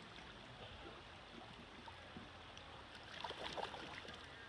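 Shallow creek water running over gravel, with a brief flurry of splashing about three seconds in as a chum salmon thrashes at the surface.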